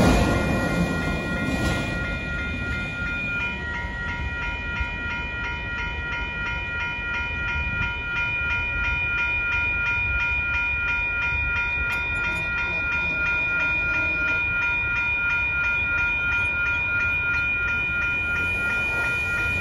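The last cars of a freight auto train passing over a grade crossing in the first couple of seconds, then the crossing signal's warning bells ringing steadily with the track clear. A second ringing tone joins about three and a half seconds in.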